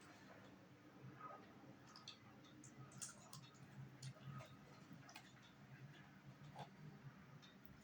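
Faint, irregular clicks and mouth noises of a dog eating soft food off a plastic spoon, over a faint low hum.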